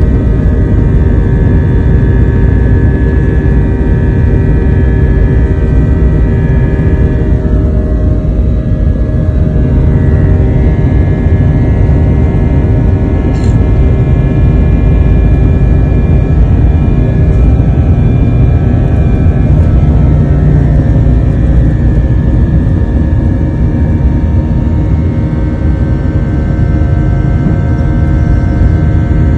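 Airliner engines at takeoff power, heard from inside the cabin: a loud, steady rumble with several steady whining tones over it.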